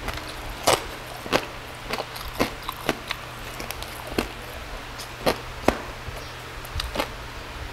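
Close-up chewing of crispy lechon liempo (roast pork belly with crackling skin): sharp, irregular crunches about once or twice a second.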